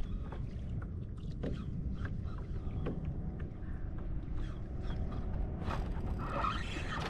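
Spinning fishing reel being cranked to bring in a small hooked fish, with scattered light clicks and creaks from the rod and kayak over a steady low rumble of water and wind.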